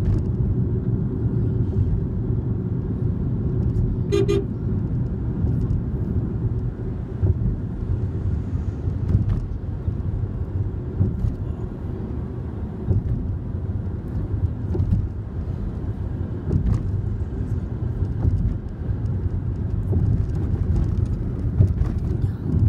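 Steady low rumble of a car's engine and tyres heard from inside the cabin while driving, with one short horn toot about four seconds in.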